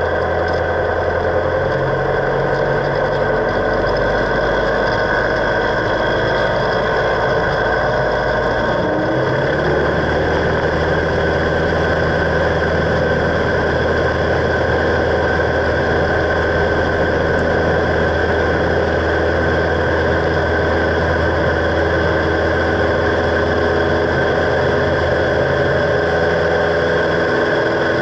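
Cessna 172's piston engine heard from inside the cabin, running at low power, then speeding up to takeoff power about nine seconds in and holding a steady drone through the takeoff roll.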